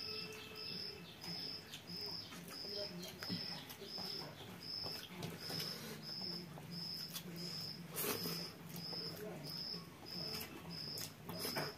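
Fingers mixing rice and curry on steel plates, giving scattered soft clicks and scrapes, the loudest about two-thirds of the way in and near the end. Underneath, a high chirp repeats evenly about three times every two seconds over a low steady hum.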